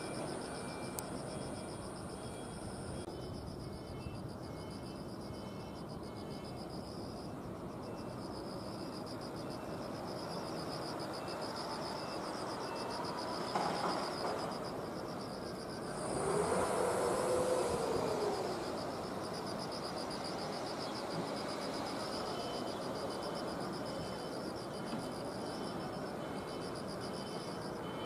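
Outdoor ambience with insects chirping in steady pulsing trills at two high pitches. About sixteen seconds in, a louder noise swells for about two seconds, with a tone that rises and then falls, and fades again.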